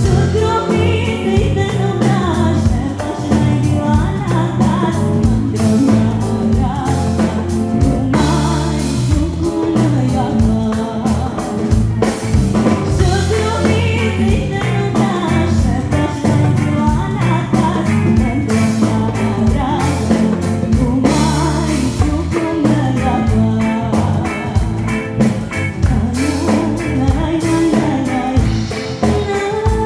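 A woman sings with a live band: electric bass guitar and a steady beat under her voice.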